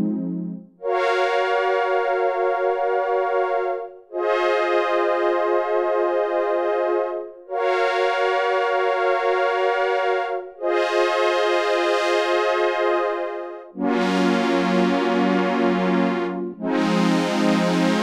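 Korg Minilogue XD analogue polysynth playing a Prophet-10-style patch: about six slow chords, each held about three seconds with a slight shimmer in the tone. The last two chords, from about fourteen seconds in, sit lower and sound brighter.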